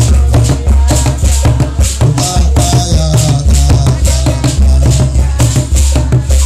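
Lively praise music: hand drums and a shaker keep a quick, even beat of about four strokes a second over a heavy pulsing bass. Above it, a man sings a wavering melody into a microphone played through a loudspeaker.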